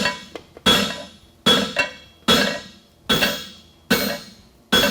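Farrier's hammer striking a hot 5/8-inch square steel bar set in a tooling block on the anvil, a blow roughly every 0.8 seconds. Each strike rings out with a metallic tone that dies away before the next.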